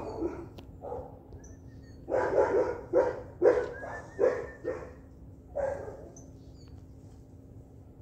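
A dog barking in a series of short barks, most of them between about two and six seconds in, with a few faint high bird chirps in between.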